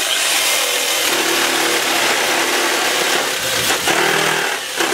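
Cordless reciprocating saw cutting through the rusty exhaust pipe of a diesel VW Jetta to remove the catalytic converter. It runs continuously at full speed, easing off briefly twice near the end.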